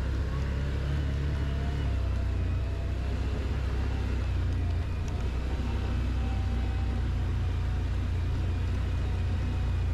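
Quad bike (ATV) engine running steadily while riding, a continuous low drone with a faint whine above it.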